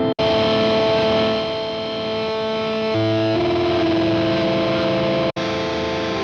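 Digital synthesizer played through a Strymon Iridium amp-and-cab simulator, giving it a gritty, distorted, guitar-amp tone. It holds sustained notes that change about three seconds in. The sound cuts out very briefly twice, just after the start and about five seconds in.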